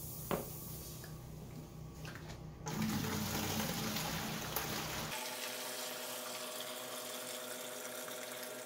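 Water running as the air compressor's water cooling loop is filled, a steady rushing that gets louder about three seconds in. A steady hum joins it about halfway through.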